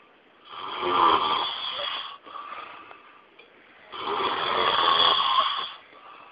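A person snoring loudly: two long, rasping snores about three and a half seconds apart, each lasting close to two seconds.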